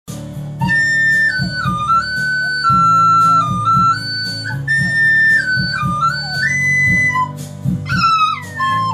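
A flute-like melody played over a low accompaniment with a steady beat. Near the end a puppy joins in with a falling, wavering howl.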